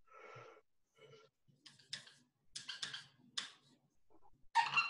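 Marker pen writing on a white board: a run of short scratching strokes, a few with a faint squeak, the loudest near the end.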